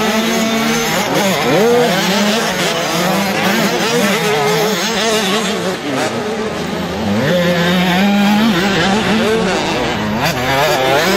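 Several motocross bikes' engines revving hard, their pitch rising and falling again and again as the riders accelerate and shift, with more than one bike heard at once.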